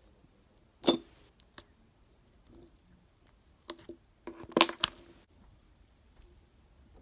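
Homemade slime being squished and pressed by hand, making sharp clicking pops: one about a second in and a quick cluster of them around four to five seconds in.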